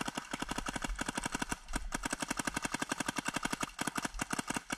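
Planet Eclipse MG100 paintball marker firing in rapid, evenly spaced strings of shots, with a few brief pauses between strings.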